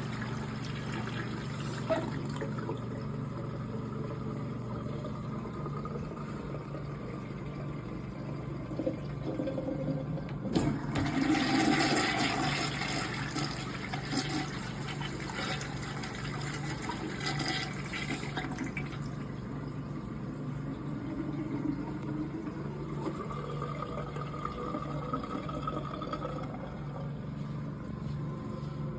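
Urinal's newly fitted Sloan flush valve flushing, water rushing steadily through it, with a louder surge of water about ten seconds in. This is a test flush of the new valve.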